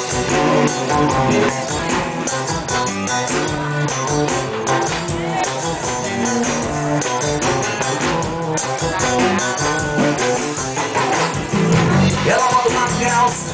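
Carnival band playing upbeat dance music with a steady beat.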